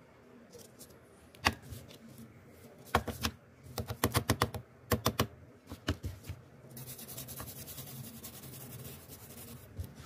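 Sharp plastic clicks and knocks, a quick cluster of them midway, as an old PC case fan's frame is handled and set down. Then a steady dry scratching as a toothbrush scrubs the dirt off the fan's blades and hub.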